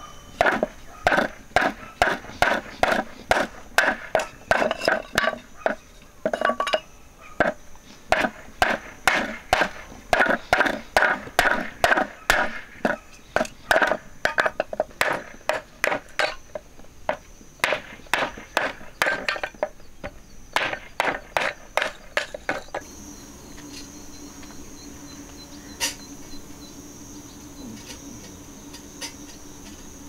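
Hatchet blade striking pine boards again and again, about two to three sharp knocks a second, splitting them into thin kindling sticks. The chopping stops about three quarters of the way through, leaving a faint steady background with a single click.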